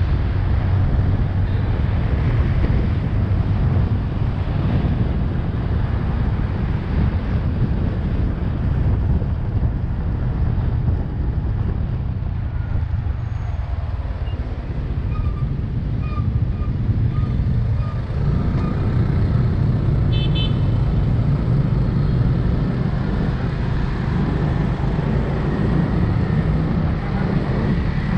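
Steady low rumble of wind and road noise heard from a moving motorbike in city traffic. A few short horn toots sound partway through.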